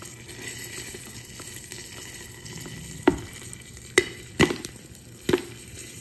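Popcorn kernels popping in a Joulle electric kettle on its popcorn setting: four sharp single pops over a steady sizzle from the heating butter, in the early stage of popping.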